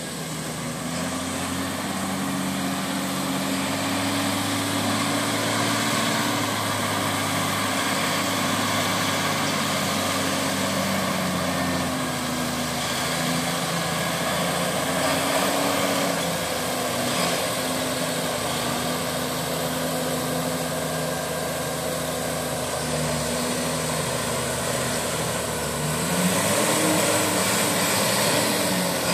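Valtra T191 tractor's diesel engine running steadily under load while it drives a rear rotary tiller through wet paddy-field mud. The engine note shifts about twelve seconds in, then climbs and grows louder near the end.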